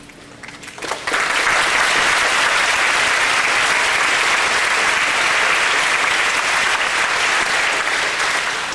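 Audience applauding. It breaks out suddenly about a second in, holds steady, and starts to die down near the end.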